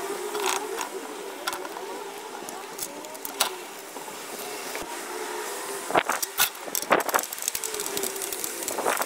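Clinks and knocks of metal parts being fitted while a cement mixer is assembled: a handful of sharp knocks, several close together about six to seven seconds in, over a faint wavering hum.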